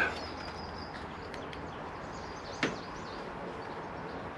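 A single sharp knock about two and a half seconds in from a breaker bar and 46 mm socket being heaved on a tight rear axle nut; otherwise only faint background.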